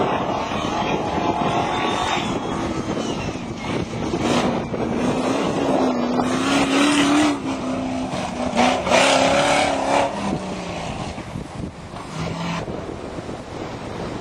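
Off-road racing 4x4's engine revving hard, its pitch rising and dipping for several seconds before it fades away about ten seconds in. Wind buffets the microphone throughout.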